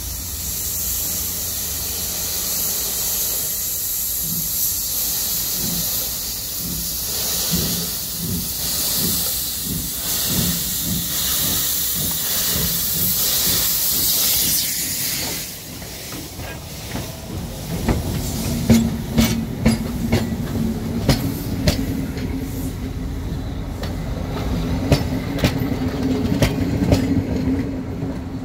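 PKP Pt47 steam locomotive pulling away with a train: a loud steam hiss from its cylinder drain cocks over slow exhaust beats, the hiss cutting off about halfway through. The passenger coaches then roll past, their wheels clicking over the rail joints.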